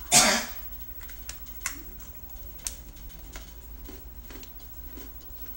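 A loud crunch as a bite is taken out of a hard, freeze-dried vanilla ice cream sandwich, followed by faint scattered crunches while it is chewed.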